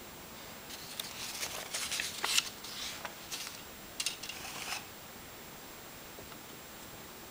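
Paper instruction sheets of a plastic model kit rustling and crinkling as they are handled and moved, with a few light taps, between about one and five seconds in, loudest about two seconds in.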